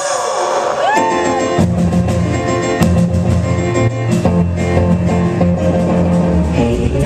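Live rock and roll band playing a song's instrumental opening: a held note bends about a second in, then bass and drums come in with a steady beat.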